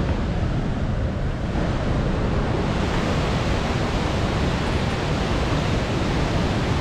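Steady, loud rush of whitewater from the Muddy Fork of the Cowlitz River pouring through a narrow gorge.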